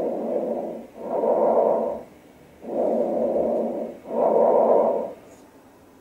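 Bronchovesicular (mixed) breath sounds as heard through a stethoscope on the chest: two breaths, each an inhale and an exhale of about equal length with a brief dip between them, and a short pause before the second breath. This mixed breathing is heard where solid lung tissue lies deep or is scattered among aerated lung.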